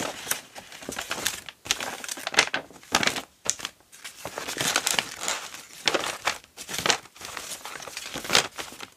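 Paper pages of a handmade junk journal rustling and crinkling as they are handled, coming and going irregularly with short pauses.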